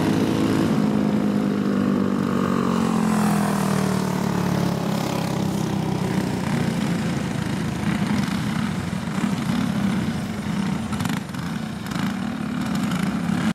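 Small single-cylinder racing kart engines running. Their pitch falls over the first few seconds as the karts slow, then they settle into a rougher, lower running note.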